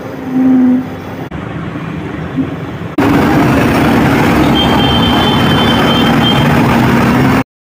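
Mahindra Treo 3000-watt electric motor running on the bench after being started by shorting its wires, a loud steady hum and rumble. It comes in suddenly about three seconds in, after a quieter stretch, and cuts off abruptly near the end.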